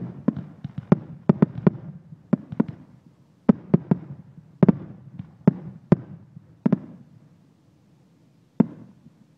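1.3G aerial display firework shells, 3-inch and under, bursting in a rapid string of sharp bangs that thins out, ending with one last lone bang near the end.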